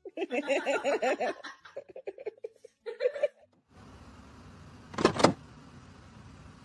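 A person giggling and laughing in short bursts for the first few seconds. Then a steady background hiss, broken by one brief loud sound about five seconds in.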